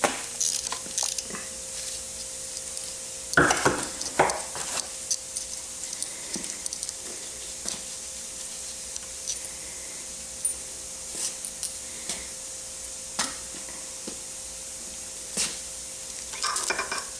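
Scattered light metallic clicks and clinks as gloved hands work the starter gears and chain off the crankshaft end of a Honda CB450 engine, with a busier cluster of knocks about three to five seconds in. A faint steady hum runs underneath.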